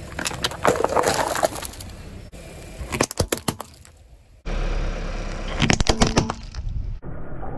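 A car tyre rolling over and crushing brittle objects: clusters of sharp cracks and crunches, three times, with abrupt cuts between short clips.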